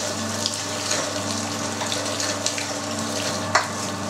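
Electric meat grinder running steadily, its motor humming as chunks of fatty pork are fed in and minced through a coarse 20 mm plate. Occasional sharp clicks, the loudest about three and a half seconds in.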